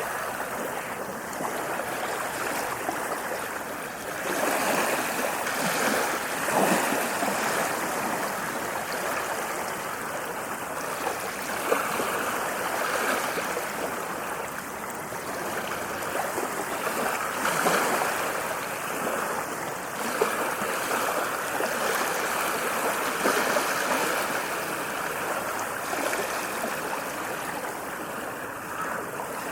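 Ocean waves washing in: a continuous rushing wash that swells every five or six seconds.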